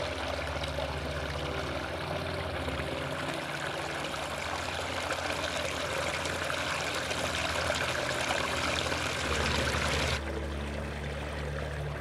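Small mountain creek rushing and splashing over rocky cascades, a steady rush of running water that cuts off suddenly about ten seconds in.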